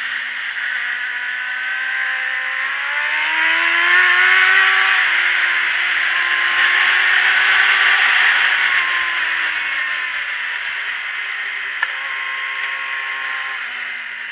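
Sport motorcycle engine heard from a camera mounted on the bike under heavy wind rush: the engine note rises as the bike accelerates a couple of seconds in, holds, then falls as it slows, and settles. A single sharp tick near the end.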